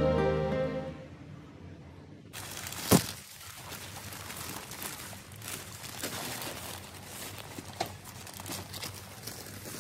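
Background music fades out in the first second. Then newspaper wrapped around bundles of flower stems rustles and crinkles as a hand sorts through the bunches, with a sharp crackle just after it begins.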